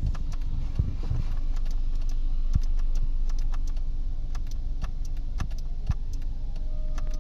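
Steady low hum of a car's engine idling, with scattered small clicks and rattles at irregular intervals, like handling of tools or switches.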